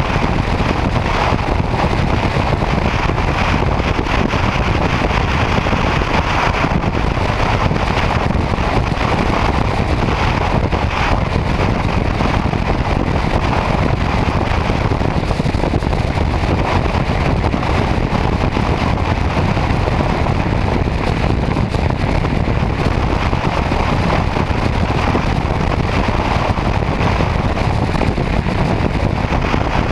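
Steady wind rush on the microphone mixed with a motorcycle's engine and tyre noise at highway cruising speed, heard from the bike itself; an even, unchanging noise heavy in the low end.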